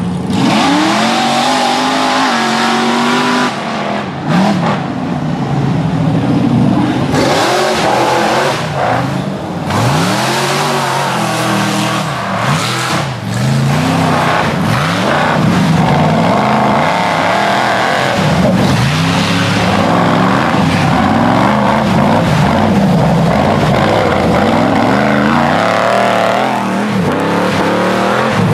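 Rock bouncer race buggy's engine revving hard over and over, its pitch sweeping up and falling back every second or two.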